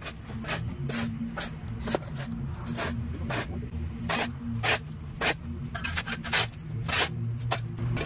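Steel shovel scraping along a concrete walkway, clearing dirt and grass from its edge in quick repeated strokes, about two or three a second, over a steady low hum.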